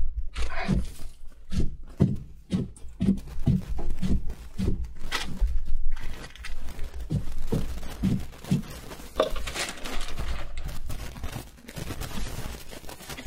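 Rustling and crinkling of a plastic grocery bag as food is taken out and handled, with a run of dull knocks and thuds, about two or three a second, as items are set down. The knocks thin out near the end.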